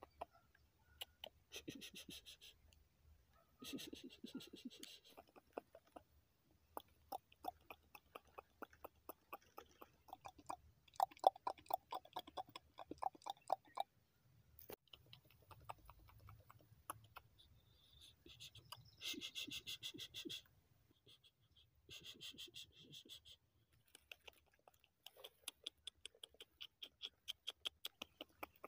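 Quiet close-up ASMR handling sounds: a makeup brush and plastic case tapped and scratched against a candy 'cosmetic', with many small clicks, some in quick runs, and a few short scratchy brushing sounds.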